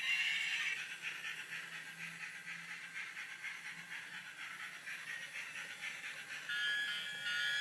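Electronic bell sound from a toy railway bell tower's small speaker: a thin, high ringing that repeats rapidly and evenly, and about six and a half seconds in, a tinny electronic tune begins.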